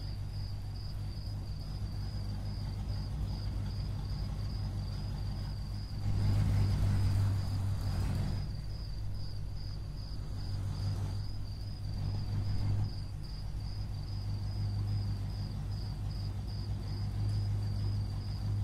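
Low, steady engine-like rumble under a high, evenly pulsing chirp like crickets at night. A louder wash of noise and rumble swells about six seconds in and eases off by eight.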